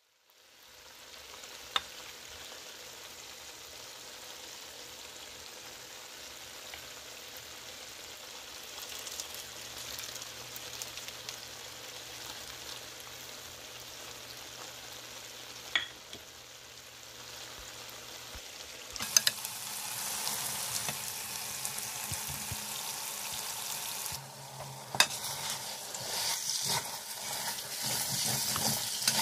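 Semolina halwa sizzling in a metal pan, with the odd clink of utensil on metal. From about two-thirds of the way in it gets louder, with scraping and clinks as a metal spoon stirs the halwa and nuts around the pan.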